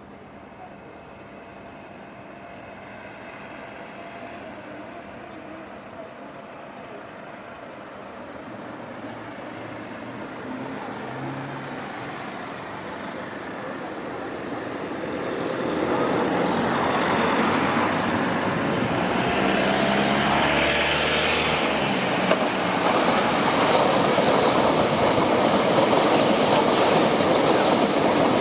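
A train approaching and growing steadily louder, then running close past with loud, steady rail and wheel noise from about halfway in.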